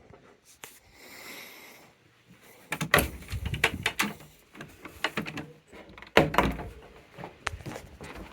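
A series of knocks and clatters, with the loudest cluster about three seconds in and another sharp one just after six seconds.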